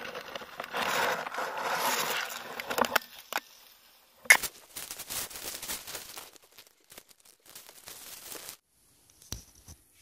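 Dry grass and leaves rustling and crackling as a hand pushes through undergrowth, loudest in the first three seconds, with a sharp snap about four seconds in and lighter crackling after it.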